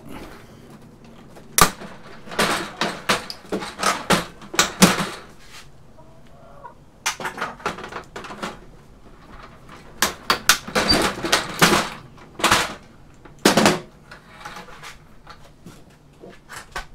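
Plastic projector casing being snapped and cracked apart with pliers: bursts of sharp cracks and creaks in several clusters, with single loud snaps near the end.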